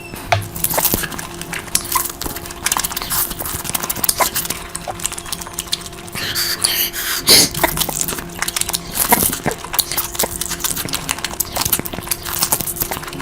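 Close-miked eating sounds: wet chewing, lip smacks and mouth clicks from big bites of curry, with a faint steady hum underneath.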